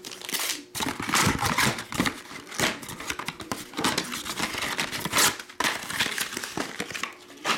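Foil trading-card pack wrappers crinkling and being crumpled in the hands, a dense irregular crackling with a short lull about two-thirds of the way through.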